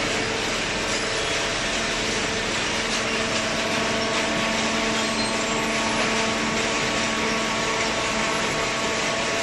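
Hydraulic cardboard baler running, its electric motor and hydraulic pump making a steady hum over an even mechanical noise.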